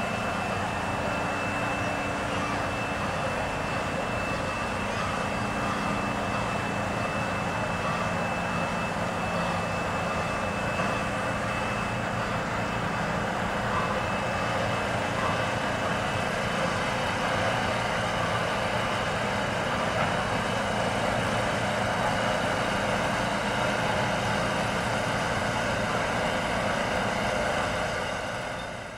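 Steady rumble of a steam-hauled passenger train rolling across a steel trestle, with a faint high steady tone over it in the first half. It fades away near the end as the train moves off.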